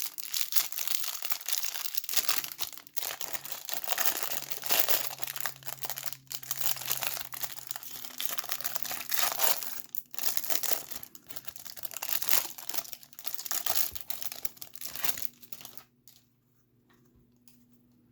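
Plastic wrapper of a Topps baseball-card hanger pack being torn open and crumpled, with continuous crinkling and tearing that stops about two seconds before the end.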